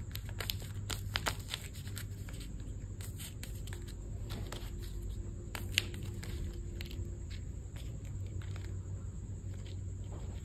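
Scattered light clicks and crinkles of paper and packaging being handled, thickest in the first two seconds with one sharper click near six seconds, over a steady low hum.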